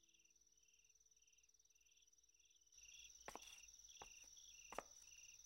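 Crickets chirping in a faint night ambience, about two chirps a second over a thin steady high note. About halfway through the chirping grows louder, and a few sharp clicks are heard.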